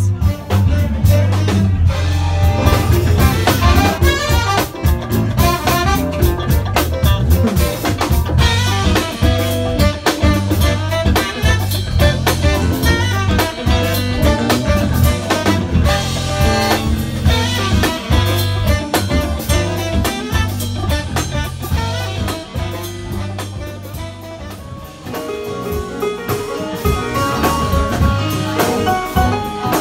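Live funk band playing loudly, with a drum kit keeping a steady beat under electric guitar.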